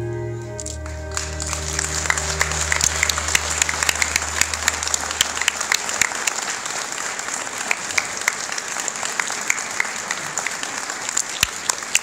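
Audience applause breaks out about a second in, many hands clapping with sharp single claps standing out, while the last held chord of the accompaniment music fades out over the first few seconds.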